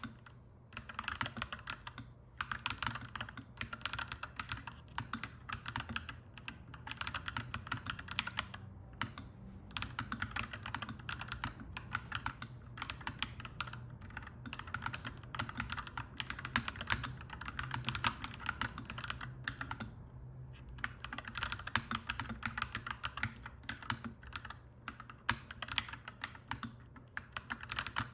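Clacky mechanical keyboard being typed on in quick, continuous runs of keystrokes, with brief pauses between runs. A steady low hum sits underneath.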